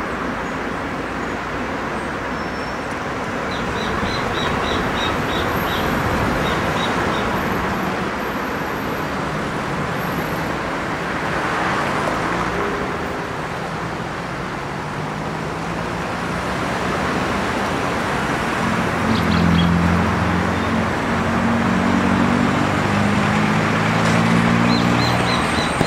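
Steady road traffic, cars swelling past one after another. A rapid run of high chirps is heard twice, and a low engine drone joins for the last several seconds.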